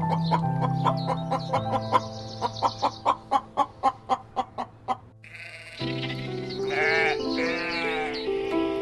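Background music with sustained chords and a run of quick plucked notes, which stops briefly about five seconds in. Near the end an animal bleats, a wavering call heard twice.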